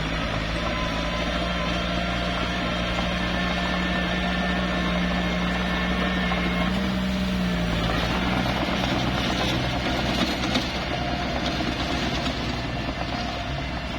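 Small bulldozer's diesel engine running steadily. About halfway through its note lifts briefly, then drops, and a rougher noise joins in for a few seconds before easing near the end.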